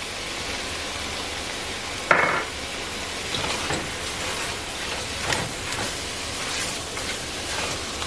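Beef pieces sizzling in hot oil as they brown in a Dutch oven. A sharp clink about two seconds in, then lighter knocks and scrapes of a utensil against the pot.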